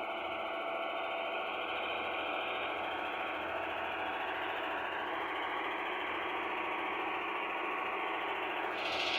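Engine of heavy road-construction machinery running steadily, growing louder and brighter near the end.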